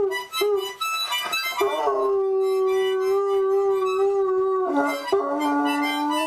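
A toddler blowing a harmonica while a large dog howls along with it, in long held notes that step lower near the end.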